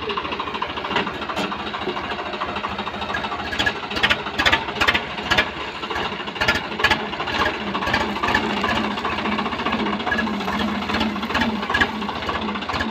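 Swaraj 744 tractor's three-cylinder diesel engine running as the tractor is driven forward, with a string of sharp clicks and knocks through the middle. This is its first test run after a crown-and-pinion repair.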